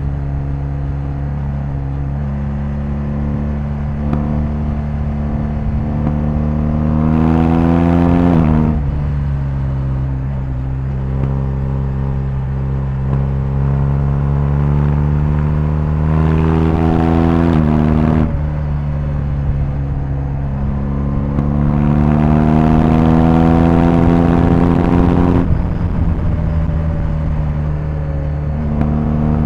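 BMW R1250GS's 1254 cc boxer twin engine pulling under acceleration. Its pitch climbs steadily and drops sharply at each of three upshifts, spaced about eight to nine seconds apart.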